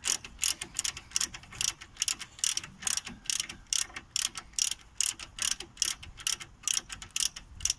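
Hand ratchet wrench clicking as it winds in the brake caliper bridge bolts. A steady run of sharp clicks, several a second.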